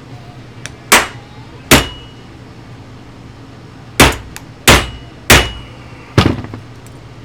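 Hammer striking metal: six sharp blows, two about a second in and four more a few seconds later, each with a short metallic ring.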